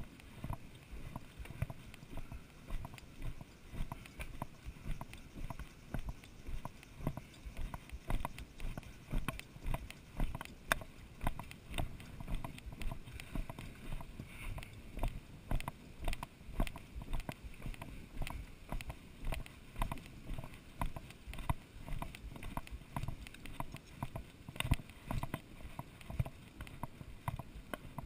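Footsteps walking on a wooden boardwalk: a steady rhythm of dull knocks, about two a second.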